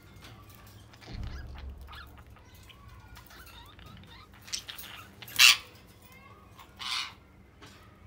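Budgerigars chattering with soft warbles and chirps, broken by two loud, harsh squawks, the first a little past halfway and the second about a second and a half later.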